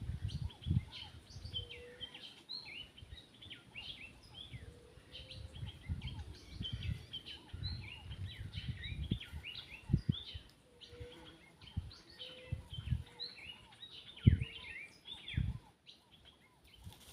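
Many birds chirping and calling at once, a dense chorus of short high chirps that goes on throughout. Irregular low thumps and rumbles sound underneath, the loudest about ten and fourteen seconds in.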